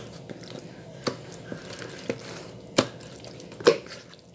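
Hands squeezing and turning raw beef steaks in marinade in a plastic bowl: a soft wet squishing, broken by a few sharp slaps of wet meat.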